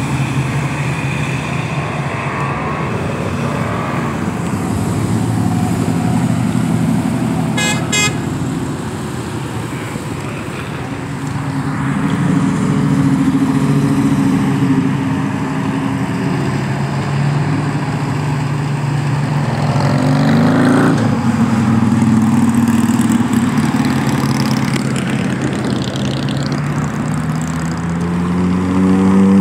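Cars driving past on a busy road, their engines running continuously, with a short car-horn toot about eight seconds in. Engines rev up with rising pitch around twenty seconds in and again near the end.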